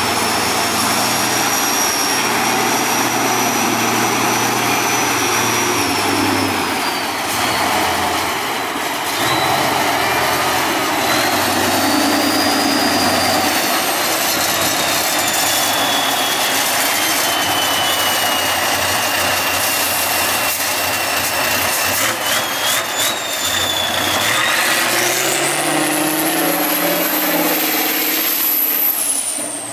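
Tatra 815 6x6 trial truck's diesel engine working hard under load as it drives up through deep mud. A high whistle rides over the engine, dipping and rising, and climbs sharply with the revs near the end.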